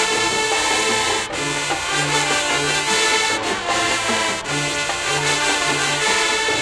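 HBCU-style high school marching band playing in the stands: full brass with sousaphones carrying a repeating bass figure.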